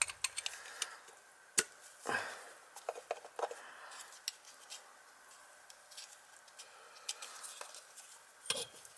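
Light, scattered metallic clicks and clinks of cut copper pipe pieces and fittings being handled, with one sharper click about a second and a half in.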